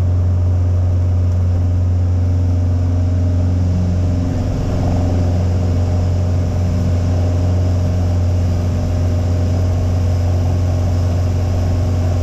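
Piper Arrow's single piston engine and propeller at takeoff power, a steady low drone heard from inside the cockpit through the takeoff roll and into the climb.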